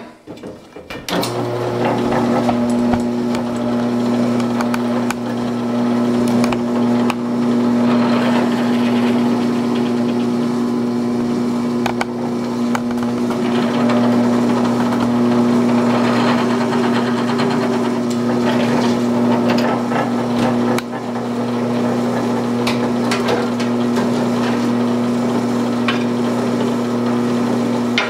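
Electric drill starting up about a second in and running steadily, drilling out holes in a wooden takedown longbow section, its motor hum steady under a rougher cutting noise that rises and falls. The sound dips briefly near the three-quarter mark.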